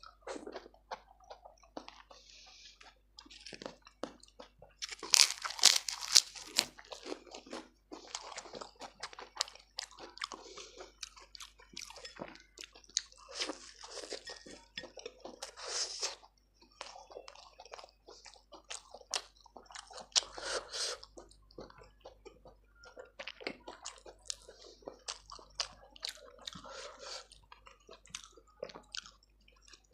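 Close-miked eating: crunchy bites and chewing in the mouth, with the loudest crunching bursts about five seconds in and again about two-thirds of the way through.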